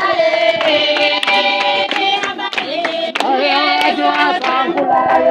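A group of people singing together, several voices holding long notes at once, with hands clapping along throughout.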